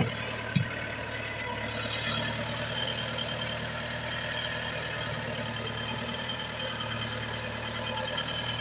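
Tractor engine running steadily at low revs, with a short thump about half a second in.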